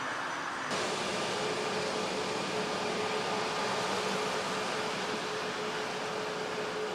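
Airbus A320's twin jet engines running at taxi power: a steady rushing noise with a held mid-pitched whine.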